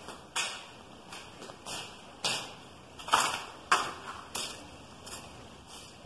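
Footsteps of a person walking at a steady pace, about three steps every two seconds, the two loudest a little past halfway.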